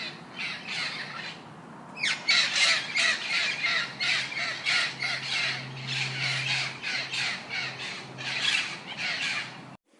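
A flock of birds calling, short calls repeating about two to three times a second and overlapping, with a brief lull a second or so in. The calls cut off abruptly just before the end.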